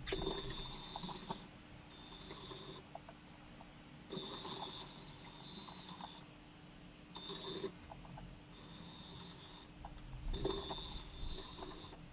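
LEGO Powered Up train motors and wheels running on plastic track: a high hiss with fast clicking that starts and stops abruptly every second or two as the trains move and halt.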